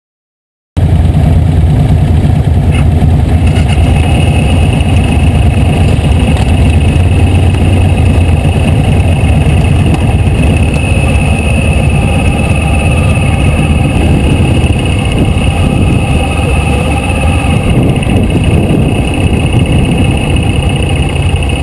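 Motorcycle engine idling close to the microphone, a loud, steady low rumble, with other motorcycles and cars idling around it. It starts abruptly about a second in.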